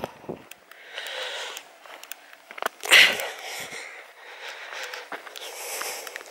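A hiker breathing hard and puffing close to the microphone while walking uphill, with a loud exhale about three seconds in.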